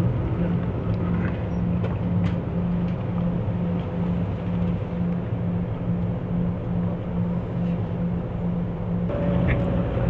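Bus engine and road noise heard from inside the moving cabin: a steady drone with a low hum that throbs about twice a second.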